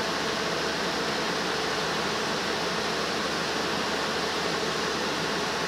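Steady hiss with a faint underlying hum from a distant DXR diesel-electric locomotive running as it reverses slowly along the track.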